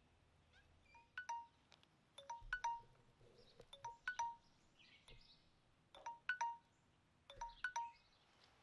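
Light chime notes ringing in short clusters of two or three, about five clusters spaced roughly a second and a half apart.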